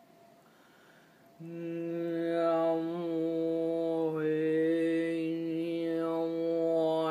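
A woman's voice toning one long, steady chanted note, starting about one and a half seconds in; the vowel shifts slowly, so the overtones sweep up and down while the pitch holds.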